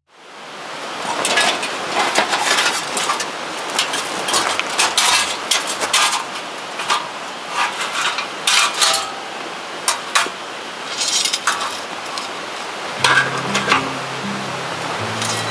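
Short clinks and knocks of firewood being handled and set into a metal fire pit, over a steady background hiss. Music with low held notes comes in near the end.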